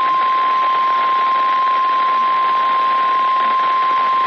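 NOAA Weather Radio warning alarm tone: one steady 1050 Hz tone held without a break over a loud hiss of radio static. It signals that a warning is about to be read.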